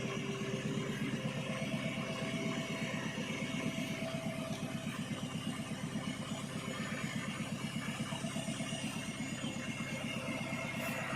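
Mobile crane's diesel engine running steadily with a fast, even throb.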